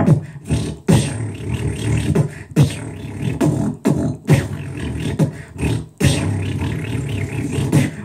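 Human beatboxing into a close microphone: a sustained low buzzing vocal bass line, punctuated by short dropping kick-drum thumps and sharp click-like snare hits in a steady beat.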